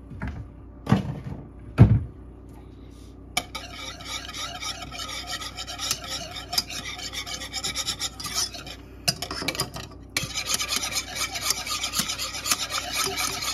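Wire whisk scraping fast and steadily around a metal saucepan through hollandaise sauce that is starting to thicken, beginning about three and a half seconds in, with a short pause about nine seconds in. A few dull thumps come before the whisking starts.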